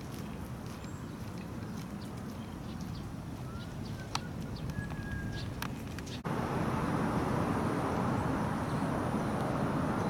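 Outdoor ambience: a steady low hum of distant traffic with a few short bird chirps and scattered clicks. About six seconds in it cuts abruptly to a louder, steady rush of traffic noise.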